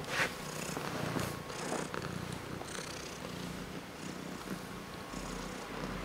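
Domestic cat purring close to the microphone, a low hum that swells and fades in short stretches, with a sharp click right at the start and a few brief rustles in the first three seconds.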